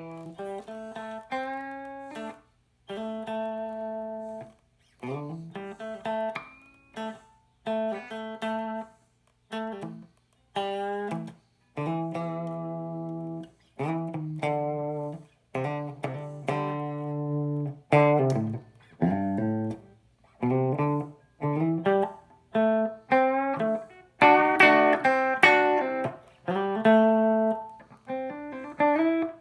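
Electric guitar, a Vogel Single Cut Jr. with a Seymour Duncan JB pickup, played through a Marshall JTM50 valve amp: loose noodling of chords and single notes, each struck and then cut short, with a few notes bent upward. A faint steady amp hum runs underneath.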